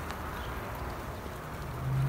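Honeybees buzzing around an open hive as a brood frame covered in bees is lifted out, a low steady hum that grows a little louder near the end.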